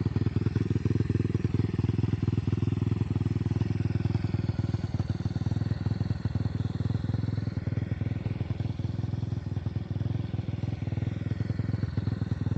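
Small single-cylinder four-stroke Lifan engine of a monkey-style minibike running steadily, its level even throughout.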